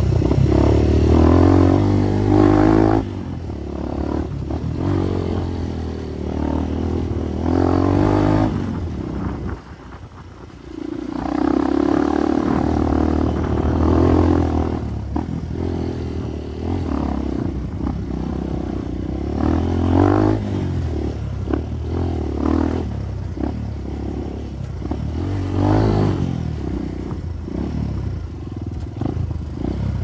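Trail motorcycle engine heard from the rider's seat, pulling in surges as the throttle opens and closes on a rough dirt track, with clatter from the bike over the bumps. The engine drops low for about a second near the middle, then pulls again.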